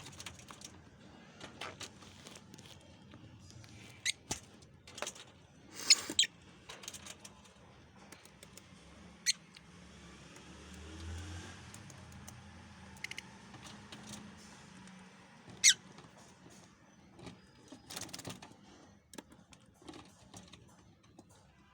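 Lovebirds giving short, sharp, high-pitched chirps and squeaks, scattered irregularly every second or few, over faint rustling.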